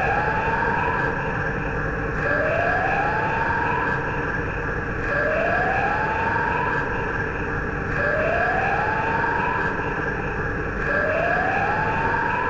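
Shin Zetton's electronic sound effect: a rising synthetic tone that repeats about every three seconds over a steady droning bed of higher tones and a low rumble.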